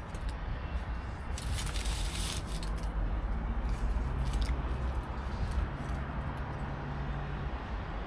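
Steady low outdoor rumble, with a brief burst of hiss about a second and a half in that lasts about a second.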